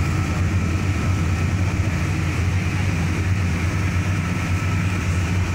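Steady low rumble of a car driving along a road, heard from inside the vehicle: engine and road noise with no distinct events.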